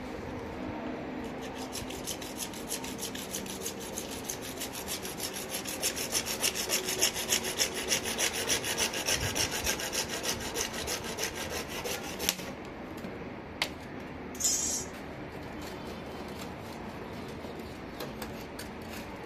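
Small hand saw cutting through a white plastic water pipe: rapid back-and-forth strokes that grow louder, then stop about two-thirds of the way in. A sharp click and a brief hiss follow, over a steady low hum.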